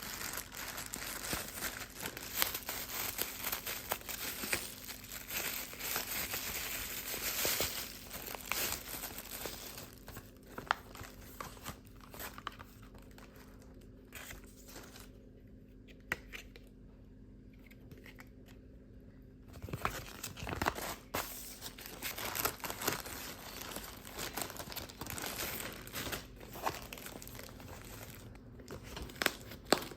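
Rustling and crinkling, with many small clicks and handling noises, quieter for several seconds in the middle.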